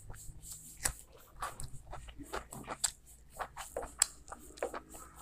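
Close-miked mouth sounds of a person eating curry and rice by hand: chewing with irregular wet smacks and clicks.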